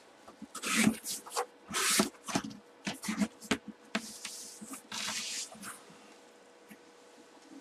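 Cardboard shipping box being opened by hand: flaps folded back and a white inner box pushed and slid against the cardboard, giving a run of irregular scrapes and rubs that die down near the end.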